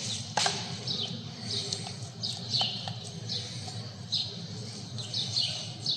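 Small birds chirping in short, high, falling notes again and again, over a steady low hum, with a few light metallic clicks of tools being handled.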